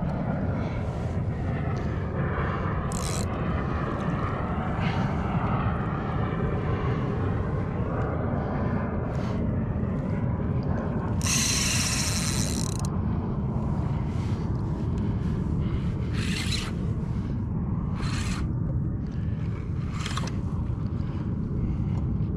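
Steady wind rumbling on the microphone over a kayak on open sea, with water lapping at the hull and a few short knocks. Just past the middle comes a louder hiss lasting about a second and a half.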